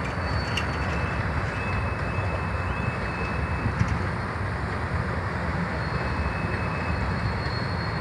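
Freight train of covered grain hopper cars rolling past, a steady rumble of wheels on rail with faint thin high squeals from the wheels now and then.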